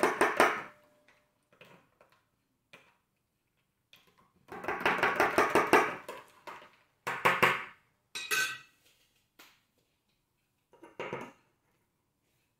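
Metal spoon stirring briskly inside a stainless steel tumbler, clinking against the metal walls about eight times a second. It comes in several bursts of a second or so with quiet gaps between, and one burst rings metallically.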